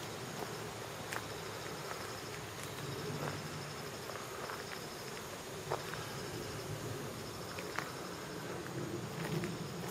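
Insects calling in a steady, high, finely pulsed trill, with a few sharp clicks scattered through.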